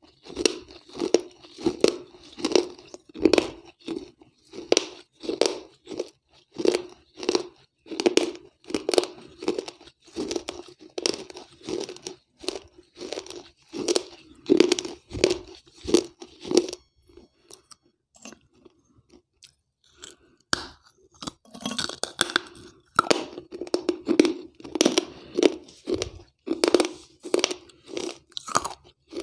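Close-miked crunching chews of soaked terracotta clay from a broken clay piggy bank (gullak), about two chews a second. The chewing pauses for a few seconds just past the middle, then resumes.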